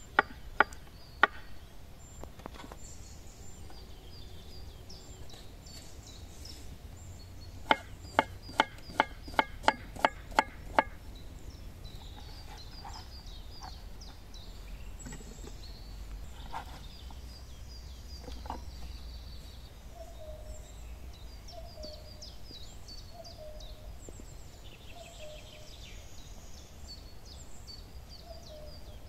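Knife chopping on a wooden cutting board: sharp knocks about three a second, a few at the start and a run of about nine around the middle. Birds chirp throughout, and a short low call repeats in the second half.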